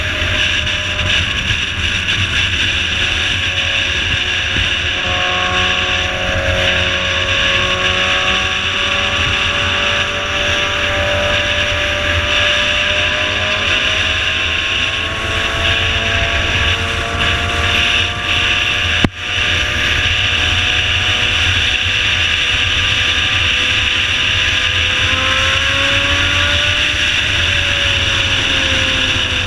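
Motorcycle riding at highway speed: the engine drones with its pitch slowly rising and falling, under steady wind noise.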